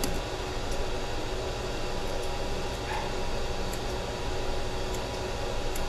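Steady mechanical hum of room ventilation running, with a few faint, sparse snips of straight grooming shears cutting the dog's facial hair.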